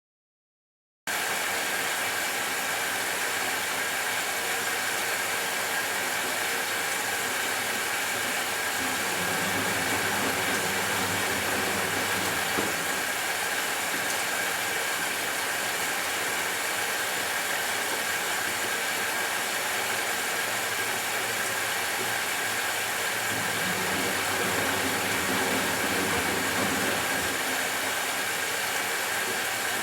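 Matura Autostatic 850 washing machine running partway through a 60°C delicates wash, a steady hum and hiss that starts about a second in.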